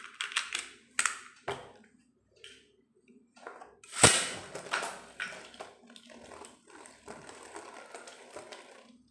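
A Beyblade Burst top, Bloody Longinus, clicking into its launcher, then launched with one loud sharp hit about four seconds in. It then spins on the cardboard stadium floor with a steady faint whir and light ticks.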